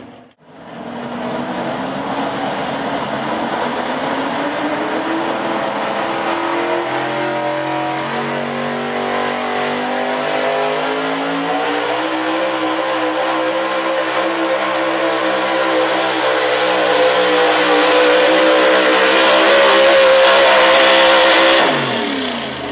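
Gas big-block Pro Street pulling truck's engine at full throttle pulling the weight sled. The revs climb slowly, then hold high and grow loudest. Near the end the engine drops off suddenly, its pitch falling.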